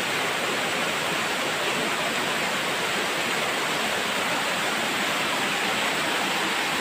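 Waterfall whitewater cascading over rocks close by, a steady, even rush of water.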